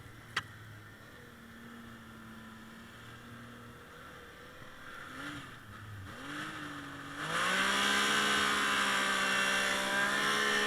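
Arctic Cat M 7000 snowmobile engine running low and steady, blipped up and down twice, then opened up at about seven seconds to a loud, steady high-revving note. A single sharp click comes about half a second in.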